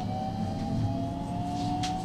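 JR West Special Rapid electric train's inverter-driven traction motors whining in steady tones that climb slowly in pitch as the train gathers speed, over a low running rumble from inside the car. A single sharp click sounds near the end.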